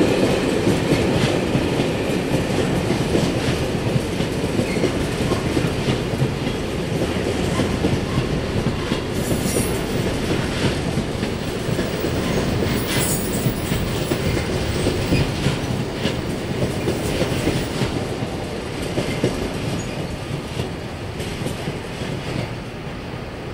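Container-laden freight wagons rolling past with a steady rumble of wheels on rail, with two brief high-pitched wheel squeals around the middle. The noise slowly fades near the end as the last wagons draw away.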